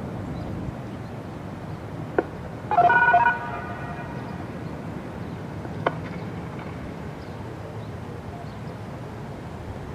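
Steady low outdoor traffic rumble, with a short horn toot about three seconds in and two sharp clicks, one just before the toot and one about three seconds after it.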